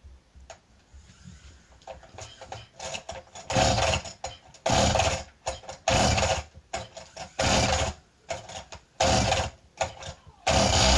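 Two-stroke engine of a Jonsered RS44 brushcutter (Husqvarna 245R) being pull-started over and over. It fires for under a second on each of about six pulls, and the last burst near the end runs a little longer.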